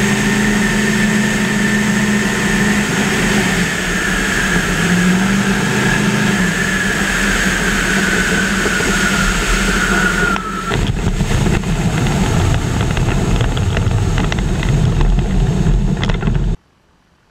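Weight-shift ultralight trike's engine and propeller running steadily in low flight, the pitch easing slightly lower. About two-thirds through, the throttle comes back for the landing and the engine tone drops away, leaving wind rush and a bumpy rumble as the trike comes down over the grass. It cuts off suddenly near the end.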